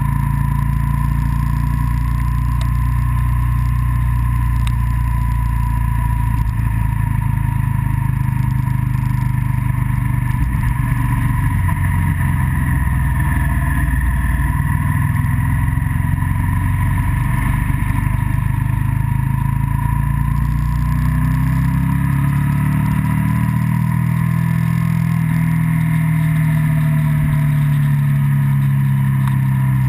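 Onboard sound of a vehicle's engine running steadily under road and wind noise, with a steady whine alongside. Near the end the engine note rises and falls as the revs change.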